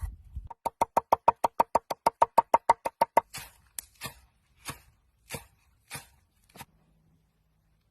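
Knife chopping on a cutting board: a fast, even run of about six sharp, ringing strokes a second for a couple of seconds, then slower single chops about two-thirds of a second apart that die out near the end.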